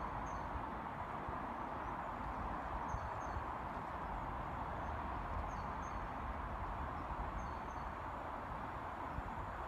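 A bird giving short, high double chirps every second or two over a steady background rumble and hiss.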